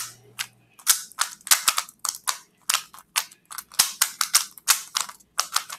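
Hand-turned 3x3 speedcube, freshly lubricated, being turned fast in a solve: rapid, irregular sharp plastic clacks of its layers, several a second.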